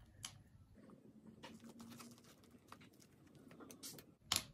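Faint taps and clicks of plastic fineliner pens being handled and slid into the elastic loops of a fabric pencil case, with one sharper click near the end.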